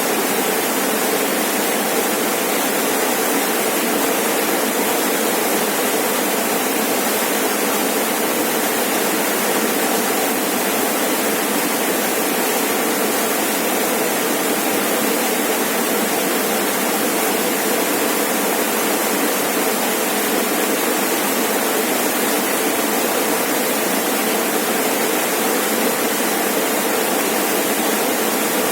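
Rainforest waterfall: water pouring and splashing in a steady, unbroken rush.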